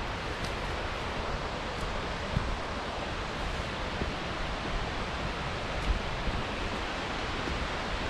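Steady rush of the Yudaki waterfall, an even hiss of falling water, with a few soft thumps of footsteps on the path.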